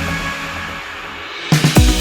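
Electronic dance music: the kick-drum beat drops out for a short break, then comes back in with a hit about one and a half seconds in.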